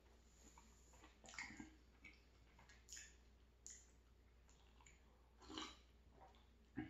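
Faint eating sounds: a person chewing a mouthful of cake, with about half a dozen soft clicks spread irregularly through the quiet.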